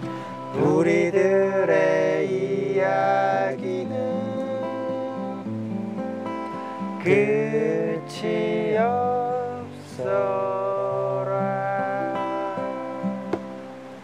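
Acoustic guitars strummed and picked, with a man singing a slow melody over them; the singing comes in about half a second in and pauses briefly a few times.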